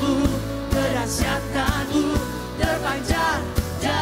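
Male vocalist singing an Indonesian worship song into a microphone over backing music with a steady drum beat of about two beats a second.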